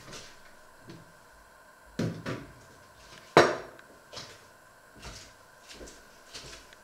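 A tablet in a hard white case being set down on a stove top: two dull knocks, then about a second later one sharp, loud clack with a short ring, followed by a few faint small knocks.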